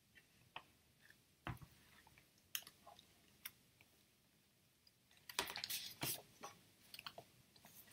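Faint, scattered soft clicks, then a short spell of rustling and crackle about five to six seconds in: paper pages being handled and turned.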